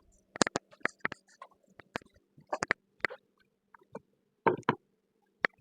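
Light, scattered clicks and knocks of cedar fence picket pieces being handled and set down, over a faint steady hum.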